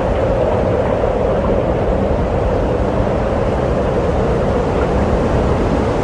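A steady, loud rushing noise with no tune, beat or voice, unchanging throughout.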